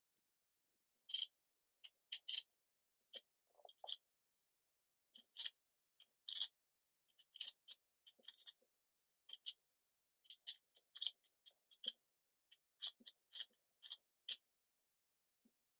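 YJ MGC magnetic 4x4 speed cube being turned, its plastic layers clicking in short irregular bursts of quick turns.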